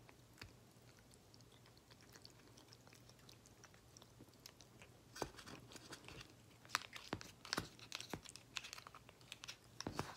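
Siamese cat eating soft wet cat food: faint chewing, a run of small quick clicks that gets busier from about halfway.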